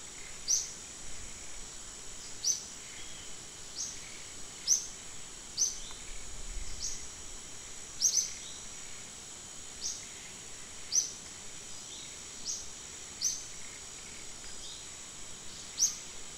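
Forest ambience: a steady high insect drone, with a short, sharp, falling chirp, most likely a bird's, repeating irregularly every second or so.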